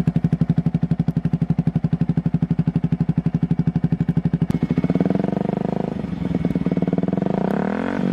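Yamaha R15 V3's single-cylinder engine through an aftermarket exhaust, idling with a loud, even popping beat, then revved from about five seconds in, the pitch climbing near the end.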